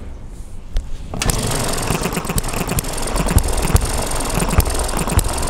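A hand-held model single-cylinder four-stroke hit-and-miss petrol engine is flicked over by its flywheel and catches a little over a second in. It then runs with a fast, steady mechanical clatter, with louder pops here and there when the cylinder fires; a hit-and-miss engine fires only every fifth or sixth turn at tick-over and freewheels between firings.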